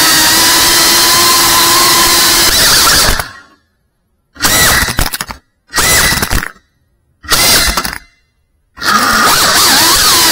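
High-pitched whine of an FPV quadcopter's motors and propellers. About three seconds in it cuts out to silence, then comes back in three short bursts with silent gaps between them. Near the end it returns steadily, its pitch wavering up and down as the throttle changes.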